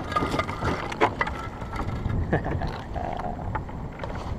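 Irregular sharp knocks and clicks over a steady low wind rumble on the microphone, with a faint scrape near the start. These are typical of floating ice chunks bumping and scraping against a kayak hull.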